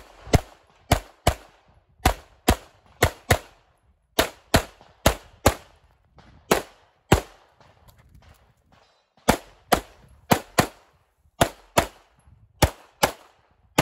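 A CZ Shadow 2 9mm pistol firing some twenty rapid shots, mostly in quick pairs about half a second apart, with a pause of about two seconds near the middle.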